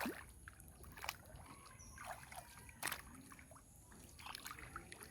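Shallow water splashing and dripping, with three sharp splashes about a second and a half to two seconds apart and small trickles and plops between them.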